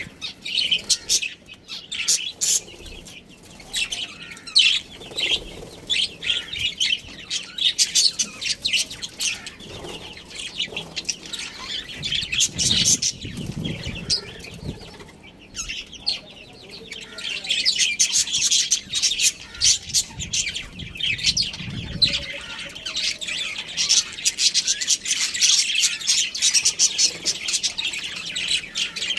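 Budgerigars chirping and chattering in rapid, overlapping high twitters, with two brief low rumbles near the middle.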